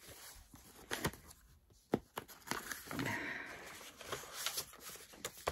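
Paper and envelopes being handled: soft rustling for a couple of seconds in the middle, with a few light taps and clicks as things are picked up and set down.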